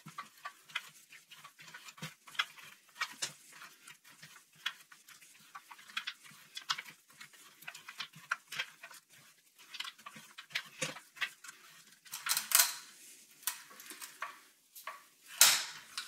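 Rotating pipe cutter being turned around a trolling motor's shaft tube, its knob tightened between turns: irregular metallic clicks and scrapes of the cutting wheel. Louder clatter comes in the last few seconds, as the cut nears completion.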